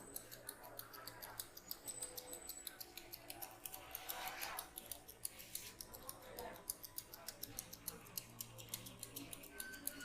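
Rapid, even, light clicking, about five clicks a second, over faint background sounds.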